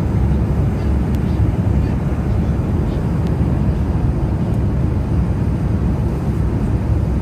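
Steady low rumble of road and engine noise inside a moving car's cabin at highway speed.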